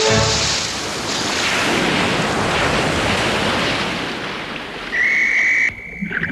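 Cartoon sound effect: a loud rushing hiss like surf or wind, slowly fading. About five seconds in comes a short steady high whistle that cuts off sharply.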